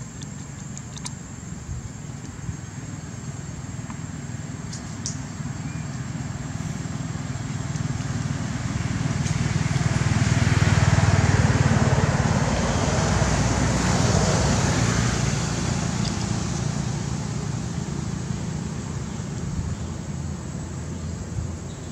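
A motor vehicle passing by: a low engine hum and road noise build slowly to a peak about halfway through, then fade away.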